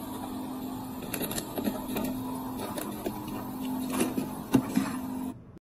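Small bag packaging machine running with a steady hum, while a sealed aluminium-foil pouch crinkles and crackles in a hand, the sharpest crackles about four seconds in.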